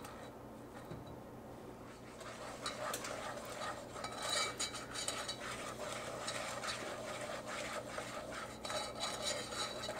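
A whisk stirring flour into a hot butter, brown sugar and honey mixture in a saucepan, with quick, uneven scraping and clicking against the pan. It starts about two seconds in.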